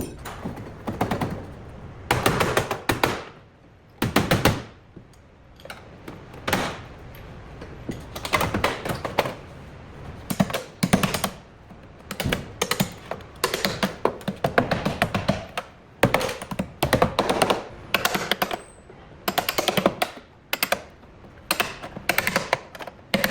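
Rapid metal-on-metal impacts in repeated short bursts of about half a second to a second each, from a bodywork tool working on the car's steel panels.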